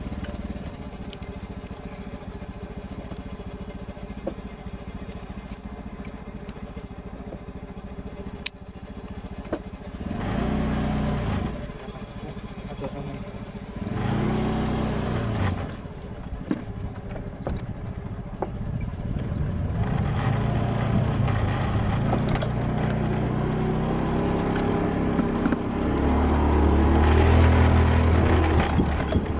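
Small motorcycle engine running at low speed. It revs up and falls back briefly twice, about ten and fourteen seconds in, then runs louder and harder over the last third as it climbs.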